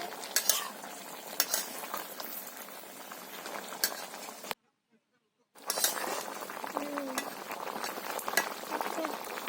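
Potato and cauliflower curry sizzling and bubbling in a pan while being stirred, with sharp clinks of the spatula against the pan now and then. The sound cuts out completely for about a second halfway through, then the sizzling and stirring resume.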